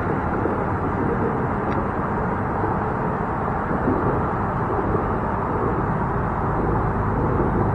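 Steady rumble of road traffic from a highway bridge, swelling slightly louder and deeper near the end.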